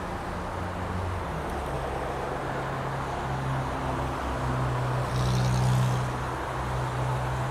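Road traffic: motor vehicles driving past on a multi-lane road, a steady engine hum with one vehicle passing louder about five seconds in.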